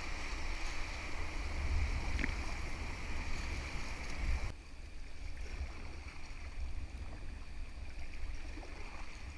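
Rushing whitewater of a river rapid around an inflatable kayak, with a heavy low rumble underneath. About halfway through it drops suddenly to the softer wash of gentler, rippling current.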